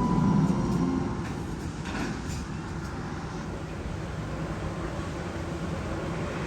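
Steady low rumbling of a roller coaster train running on its track, loudest in the first second and then settling to an even level.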